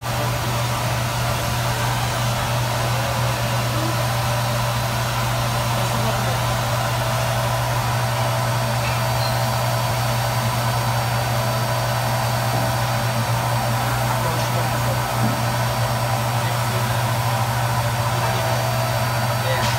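Neck-ring threading machine running, a steady, even low hum throughout.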